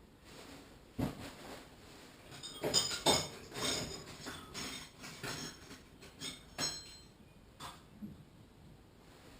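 Small metal parts and tools being handled and dropped together, a run of clinks and clatters with short metallic ringing, busiest a few seconds in.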